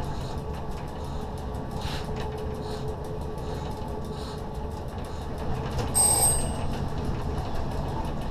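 SNCF Z 6400 electric multiple unit running, heard from its driving cab: a steady rumble of wheels on track with a faint, steady electrical hum. About six seconds in, a brief, very high-pitched ringing tone cuts in for around half a second.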